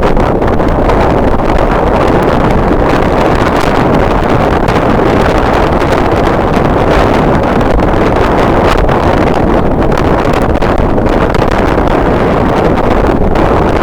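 Strong wind blowing across the microphone, loud and steady.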